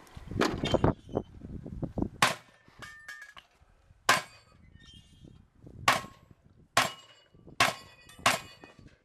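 Shotgun firing six shots with a brief metallic ring after each. The first three come close to two seconds apart, the last three quicker, under a second apart.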